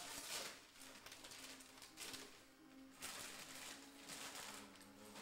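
Faint rustling of tissue paper as a gift is pulled from its wrapping, in several short rustles.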